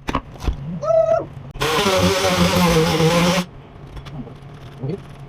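A few knocks, then a power tool run in one burst of nearly two seconds, starting about a second and a half in and cutting off suddenly.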